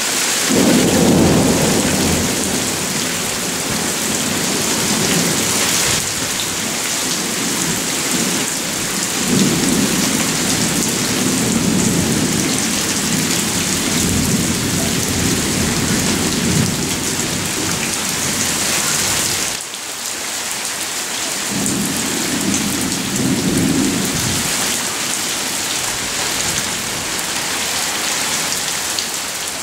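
Heavy rain pouring steadily in a monsoon thunderstorm, with rolls of thunder rumbling through it: one at the start, a long one from about a third of the way in, and a shorter one about three quarters through.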